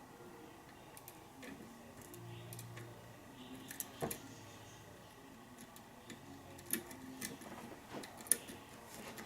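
Scattered light metallic clicks and ticks of a lock pick working the pins of a lock cylinder under tension during single-pin picking, with the lock sitting in a deep false set; the sharpest click comes about eight seconds in.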